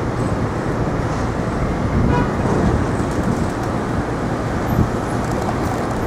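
City street traffic: a steady rumble of passing road vehicles, with a brief high-pitched tone about two seconds in.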